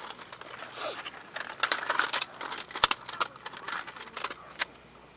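Scattered light clicks, taps and crackles of eating at a table: chopsticks working rice in a bowl and tableware being handled, with one sharper click about three seconds in.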